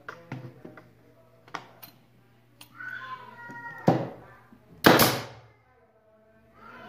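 MTX pneumatic brad nailer firing two shots into hardwood about a second apart, each a loud sharp bang. Before them come a few light clicks and knocks as the tool and the wood pieces are set in place.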